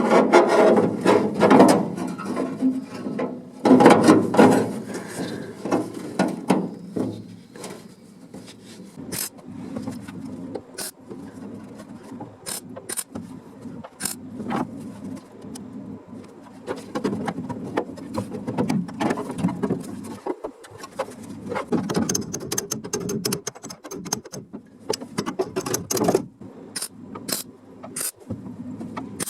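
Hand tools working sheet steel: irregular scraping and rasping with sharp clicks and taps, busiest in the first few seconds and again near the end.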